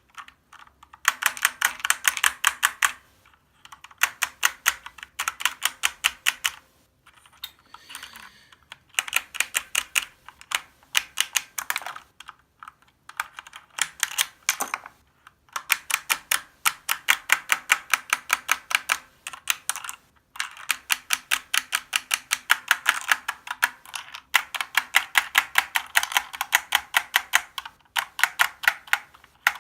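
Keys of a Corsair K70 Lux RGB mechanical keyboard being pressed, rapid clacking keystrokes in runs of one to three seconds with short pauses between.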